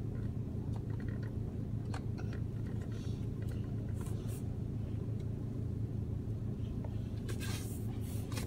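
A Mini Cooper's engine idling, a steady low hum heard inside the car's cabin. A few faint taps and rustles come about two, four and seven seconds in.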